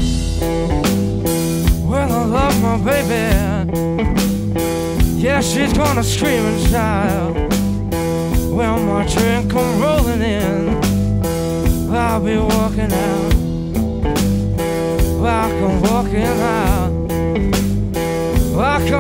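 Live blues-rock band playing: electric guitar, bass, drum kit and stage keyboard together over a steady beat.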